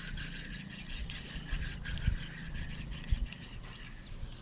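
Steady, fast-pulsing chirring of insects in the pondside vegetation, with low knocks and rubbing from a spinning rod and reel being handled close to the microphone.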